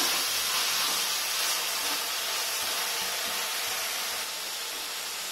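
Chopped onions sizzling in coconut oil in a nonstick pan, salted so they wilt quickly: a steady frying hiss that eases slightly near the end.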